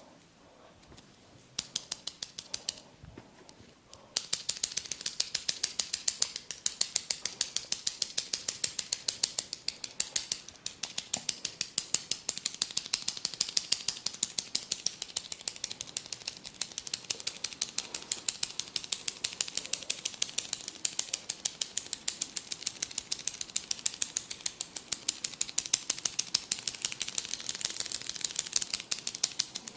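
Rapid, evenly paced crisp clicks from a barber's hands working the hair and scalp during a head massage. A brief burst starts about a second and a half in, breaks off, then the clicking runs on steadily from about four seconds in.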